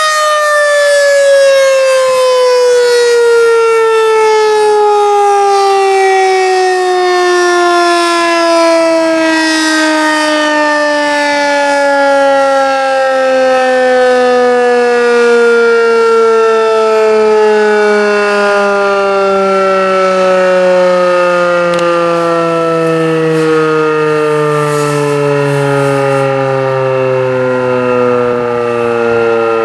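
Federal Signal 2001-SRNB outdoor warning siren winding down after being switched off at the end of an Alert-signal test. Its loud, howling tone falls slowly and smoothly in pitch.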